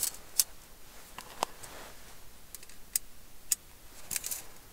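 Light metallic clicks and clinks of stainless steel hinge pins being slid and fitted through the hinges of stacked stove panels. The clicks come one at a time, with one brief ringing tink about a second and a half in and a quick cluster near the end.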